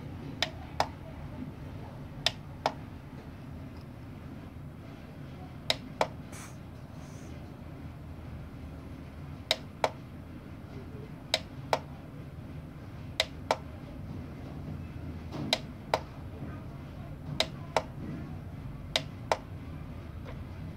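A plastic push button on a digital postal scale is pressed repeatedly, nine times about two seconds apart. Each press gives a sharp double click, cycling the scale through its weighing units.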